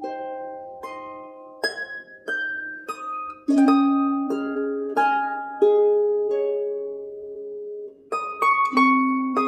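Instrumental background music of plucked string notes, each struck and left to ring and fade, forming a gentle melody with chords.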